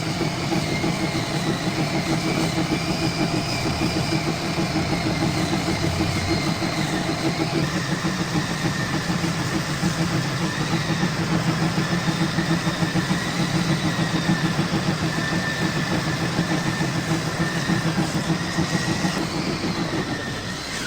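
Lathe machinery running steadily while a pulley is turned: a low, rapidly pulsing drone with a thin whine above it that wavers in pitch. The drone drops away shortly before the end.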